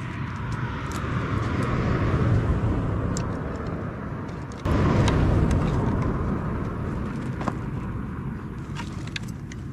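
Motor vehicles passing on a nearby road: a rushing that swells and fades, then a second one that starts suddenly about halfway through and dies away slowly. Light clicks and rustles from bags and gear being handled come through on top.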